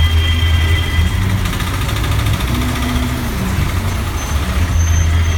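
Road traffic: vehicle engines running with a steady low rumble, one engine briefly rising and falling in pitch about halfway through.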